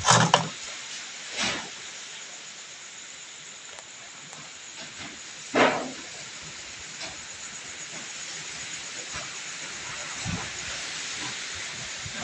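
Strong storm wind blowing with a steady hissing rush. Three brief louder surges come in: at the start, about a second and a half in, and around five and a half seconds in.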